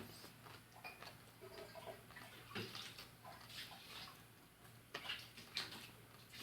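Close-up mouth sounds of eating fried fish: scattered wet clicks and smacks of chewing, the strongest a little past halfway, over a faint steady hum.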